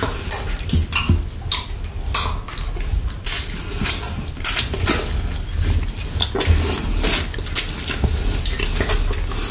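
Close-up wet mouth sounds of licking and sucking a chocolate lollipop, with frequent sharp clicks and smacks. Near the end, a clear plastic cup is handled right in front of the microphone.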